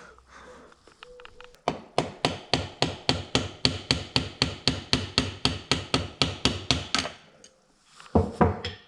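Hammer tapping on a stuck shifter axle in a Yamaha RD50 two-stroke engine case to drive it out: a steady run of quick, even blows, about four a second for some five seconds, then a short pause and two or three more blows near the end.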